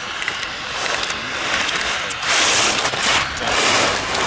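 Slalom skis carving turns on hard-packed snow: two loud scraping hisses as the edges bite and spray snow, about a second apart, past the halfway point. A few light clicks come before them.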